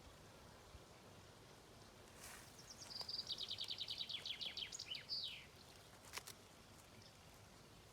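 A songbird singing one rapid trill of high repeated notes, about three seconds long, that ends in a quick falling slur, over a faint steady outdoor background. A single sharp click follows about six seconds in.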